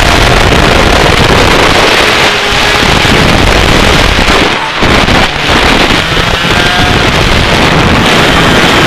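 125cc two-stroke kart engine running at speed through a lap, almost buried under heavy wind buffeting on the microphone. The loudness dips briefly twice around the middle.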